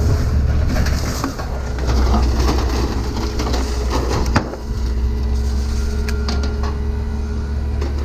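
Vehicle running with a steady low rumble and road noise, with one sharp knock about four seconds in.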